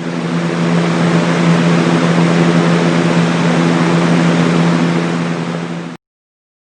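Magicteam white noise sound machine playing one of its sounds: a steady rushing noise over a low, even hum, fading in at the start and cutting off suddenly about six seconds in.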